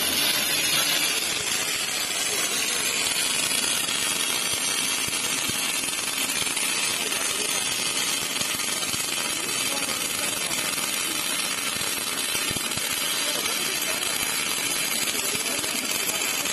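MAG (gas metal arc) welding arc crackling steadily as an automatic welder runs a circular seam weld on a steel axle.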